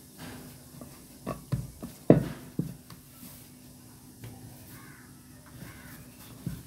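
Hands rolling and pressing a log of soft dough on a wooden board, with a few dull knocks on the board, the loudest about two seconds in.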